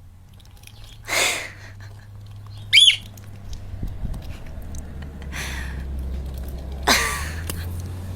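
A parrot calling: a few short, harsh squawks, the loudest and sharpest just under three seconds in.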